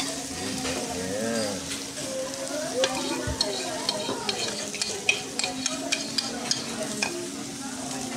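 Okonomiyaki batter and cabbage sizzling on a hot teppan griddle, with metal spoons stirring and scraping. From about three seconds in, a run of sharp clinks comes from spoons tapping against the plate and a bowl.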